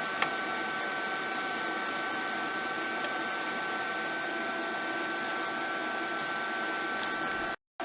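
Stahlwerk flux-core welding machine running with its wire feed on, pushing welding wire through the torch hose. It is a steady motor and fan hum with a constant high-pitched tone. The sound cuts out for a split second near the end.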